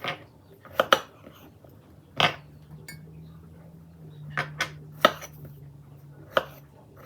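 Kitchen utensils and dishes knocking and clinking during food preparation: about eight sharp, separate knocks at irregular intervals.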